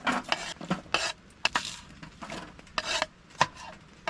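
A portable stovetop oven being handled on a wood stove: about half a dozen short metal scrapes and rubs, with light clinks of cookware.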